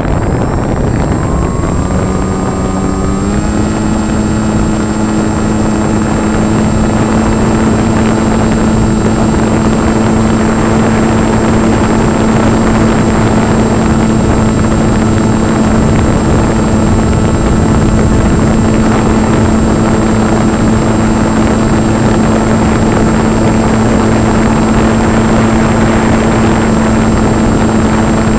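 Electric brushless motor and propeller of an RC foam plane, heard from its onboard camera over heavy wind rush. The motor's whine rises in pitch about three seconds in as the throttle comes up, then holds steady.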